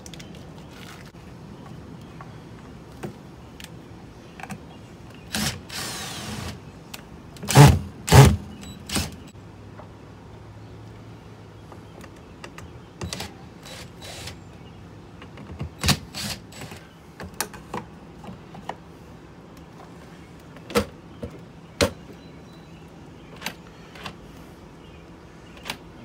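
Cordless drill running briefly to drive screws into the mounting of a keypad deadbolt's inside unit, amid clicks and knocks of parts being handled; two loud knocks about eight seconds in.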